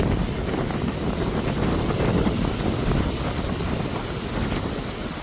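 Strong gusty wind buffeting the microphone: a rough, rumbling rush that swells and eases, dropping off toward the end.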